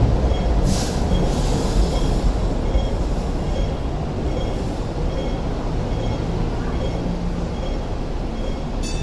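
Two-car Hong Kong Light Rail train pulling away: a low rumble of wheels and motors that slowly fades, with a brief high hiss about a second in. A faint high beep repeats about every two-thirds of a second.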